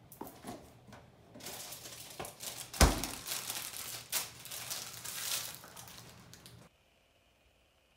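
Candy wrapper being torn open, crinkling and tearing in rapid rustles, with one sharp snap about three seconds in. The rustling cuts off suddenly near the end.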